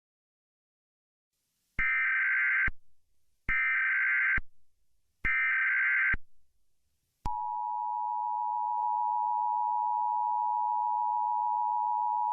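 Emergency Alert System tones announcing an emergency alert. First come three identical bursts of SAME header data, a harsh digital screech each just under a second long. About a second later the steady two-tone EAS attention signal starts and holds for about five seconds.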